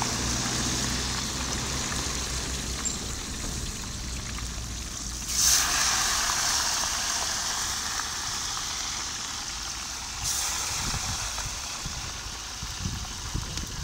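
Half-fried fish pieces lowered back into hot oil in a karahi for their second fry. A sizzle starts suddenly about five seconds in and eases into a steady frying hiss, which rises again about ten seconds in. A low steady rumble runs underneath.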